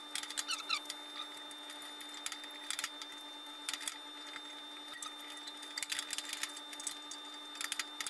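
The original tire of a JET 18-inch bandsaw's upper wheel being worked off the wheel rim by hand: irregular clicks, scrapes and rubbing, with a few short squeaks early on, over a steady hum.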